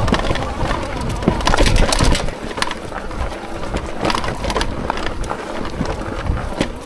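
Hitway BK10S folding fat-tyre e-bike riding over a rough dirt track: tyres crunching over loose ground with many sharp clicks and rattles. Wind rumble on the microphone through the first two seconds, easing after that.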